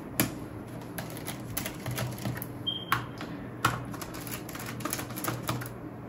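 Irregular small clicks and ticks of a precision screwdriver turning the bottom-cover screws of a Dell Precision 3570 laptop, with one brief high squeak a little before the middle.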